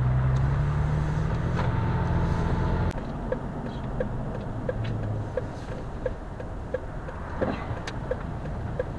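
Car driving, heard from inside the cabin: a steady low engine and road drone that drops abruptly about three seconds in, followed by quieter road noise with a light regular ticking about three times a second.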